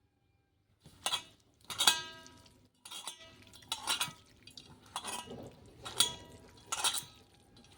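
Metal kitchen utensils and a steel bowl clinking, about seven separate clinks roughly a second apart, each ringing briefly.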